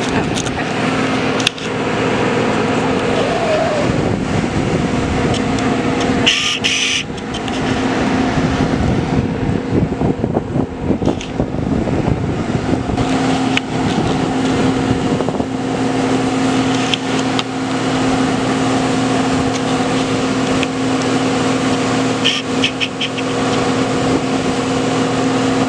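A steady machine drone holding one constant pitch, over general crowd chatter. A short hiss comes about six seconds in, and fainter ones near the end.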